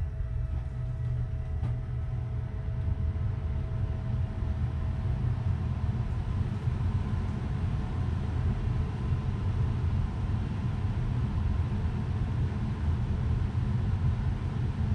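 Robot vacuum cleaner running, a steady low rumble with a faint thin hum above it.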